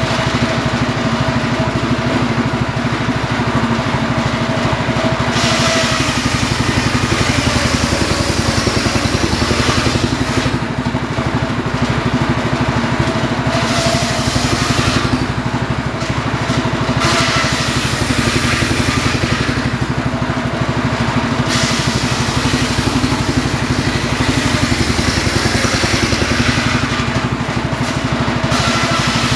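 A homemade circular saw runs steadily on the engine driving it while its large blade rips firewood logs lengthwise. A harsh cutting hiss rises over the steady hum several times as each log is pushed through, then drops back to the blade spinning free.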